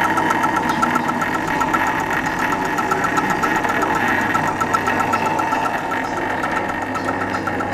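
Cineric Ericson 9.5mm cine projector running with film threaded: the steady whirr of its motor with a fast, even clatter from the film transport.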